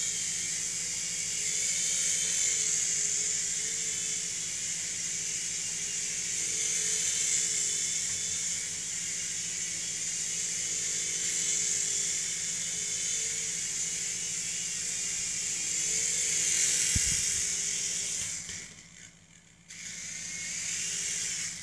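Revell Roxter RC helicopter's small electric motors and rotors spinning with a steady high whine and hiss. There is a low thud about 17 seconds in, and the sound cuts out briefly near the end before picking up again.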